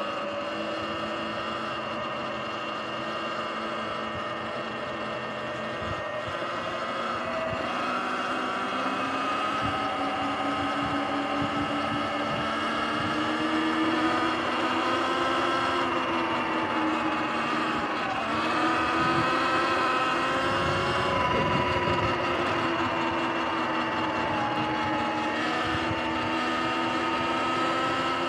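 Sur-Ron electric dirt bike's motor and drivetrain whining while riding, several tones rising and falling with speed and dipping briefly about eighteen seconds in, over a rush of tyre and wind noise.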